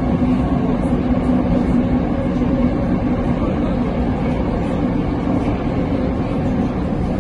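Moscow metro train running, heard from inside an open-gangway car: a loud, steady rumble of wheels on rail with a low hum that fades about two and a half seconds in.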